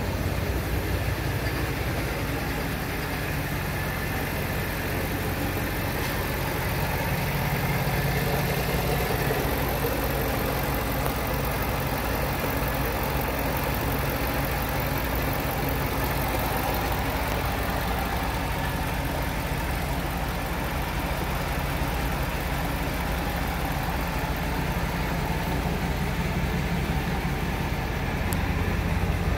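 2007 Ford F-150's 5.4-litre V8 engine idling steadily, a little louder near the end.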